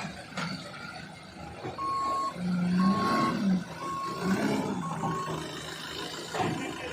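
Backup alarm on heavy earthmoving machinery beeping four times, about once a second, over a diesel engine running with its note rising and falling.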